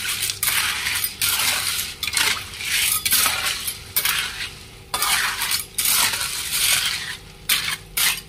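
A metal ladle stirring sea snails in water in a wok as they are parboiled: the hard shells clink and rattle against the ladle and the pan in repeated scraping strokes.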